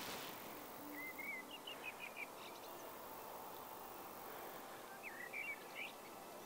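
Small birds singing in short, quick twittering phrases, in two bursts about a second in and about five seconds in, over a faint, steady outdoor background hiss.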